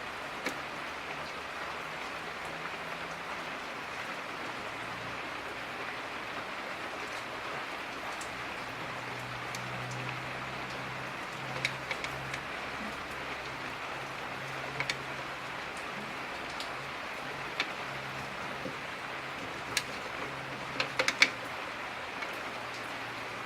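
Steady hiss and a faint low hum, with scattered light clicks and taps of a soldering iron and solder against a thin aluminum can strip, a quick cluster of taps near the end.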